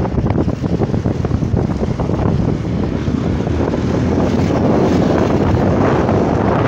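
Wind buffeting the microphone of a moving motorcycle, with the motorcycle's engine running underneath. The wind noise grows louder from about four seconds in.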